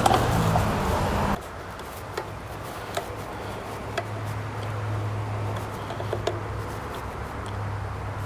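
Lawnmower engine running steadily after a carburetor cleaning, then cutting off abruptly about a second and a half in. A low hum and a few light clicks and taps follow.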